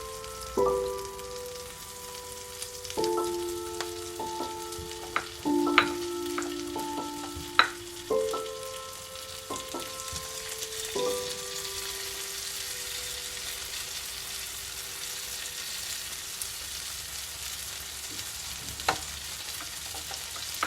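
Food sizzling as it fries in a hot pan, the hiss growing stronger about halfway through, with a few sharp utensil clicks. Soft background music of held notes plays underneath.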